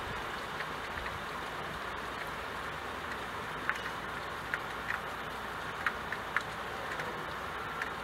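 Steady rain hiss with scattered, irregular drip plinks.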